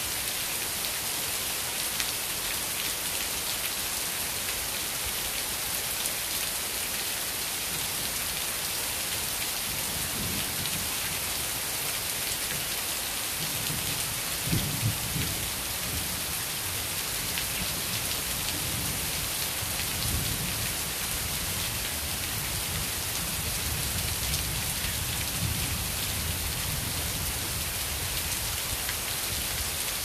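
Heavy rain pouring steadily, a dense hiss of drops on stone paving and foliage. A low rumble comes and goes through the second half, strongest around the middle.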